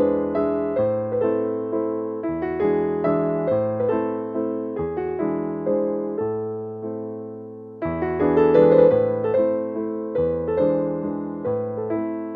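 Background piano music, one note after another dying away. About six seconds in it thins to a single fading chord, then picks up again a couple of seconds later.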